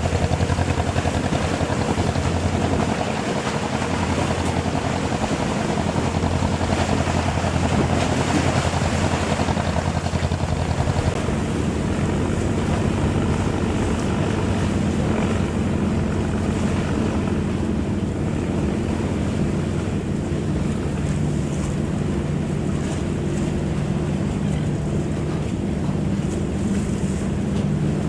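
Large fishing boat's engine running steadily, with water rushing along the hull.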